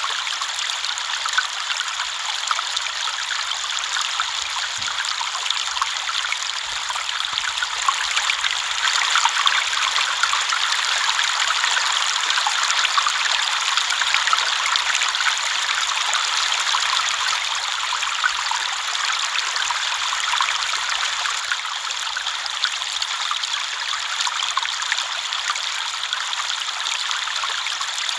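River water flowing and trickling steadily: a continuous bright splashing rush with fine crackle, swelling slightly in the middle.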